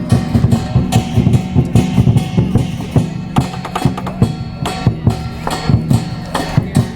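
Lion dance drum and cymbals playing a fast, driving rhythm of loud beats.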